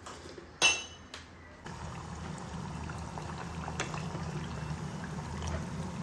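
Butter simmering down into ghee in a pot, nearly done: a steady low bubbling with faint crackles. A sharp clink comes about half a second in, and a weaker one follows.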